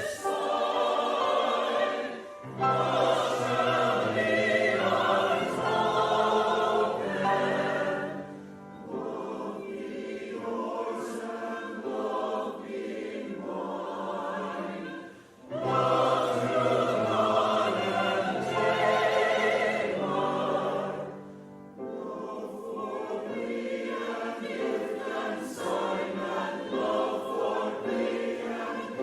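Church chancel choir singing a Christmas choral piece. Full-voiced phrases, with the low voices joining in twice, alternate with lighter passages of higher voices.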